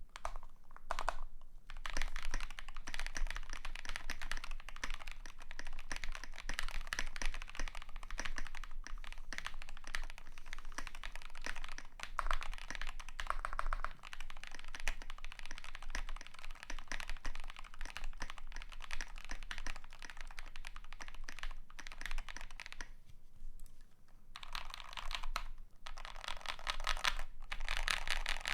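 Typing on a KBD75 v3.1 custom mechanical keyboard with lubed KTT Kang White switches on a polycarbonate plate and XMI Purple Korean keycaps. It is a fast, steady run of keystrokes with a brief pause about 23 seconds in.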